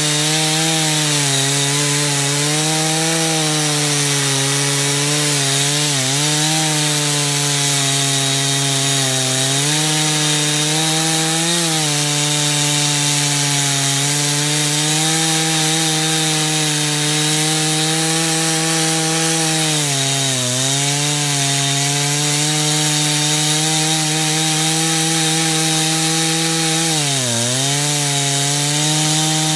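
Stihl two-stroke chainsaw running at high throttle while its chain cuts into a tree stump. The engine note sags briefly a few times as the chain bogs down in the wood, the deepest dip near the end.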